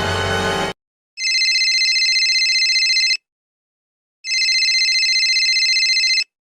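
Electronic telephone ringer ringing twice: each ring is about two seconds of high, rapidly warbling tone, with about a second of silence between rings. Music cuts off just before the first ring.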